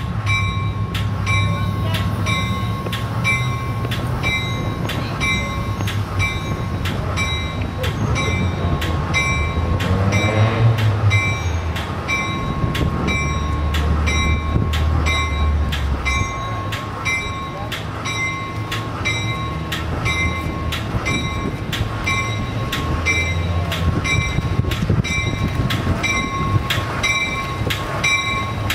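Passenger train's bell ringing steadily, about one and a half strikes a second, over the low rumble of the train rolling slowly into the station.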